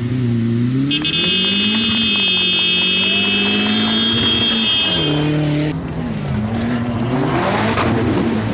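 Off-road rally 4x4's engine revving as it pulls away on dirt. Its pitch climbs, holds, drops for a shift around the middle, then climbs again. A steady high whistle-like tone sounds over it from about a second in until about halfway.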